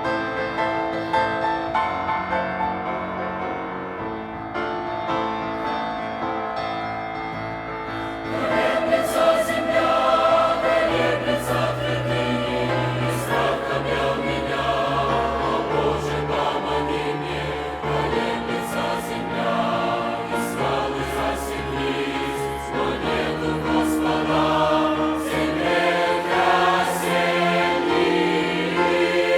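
Youth choir singing, growing louder and fuller about eight seconds in.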